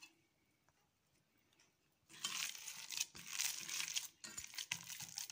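Raw minced-meat filling being squeezed and kneaded by hand in a metal bowl: wet squelching and crackling that starts about two seconds in, after a near-silent pause, and comes in a few pushes.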